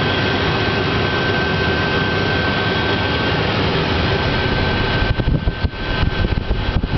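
Eclipse 500 light jet's Pratt & Whitney PW610F turbofan running, heard inside the cockpit as a steady, loud rush with a steady high whine. About five seconds in, an uneven low rumble joins it.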